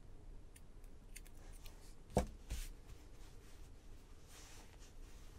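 Faint handling noise of hands smoothing and shifting a knitted fabric tube on a tabletop, with light scattered clicks. There is a sharp soft knock about two seconds in and a smaller one just after.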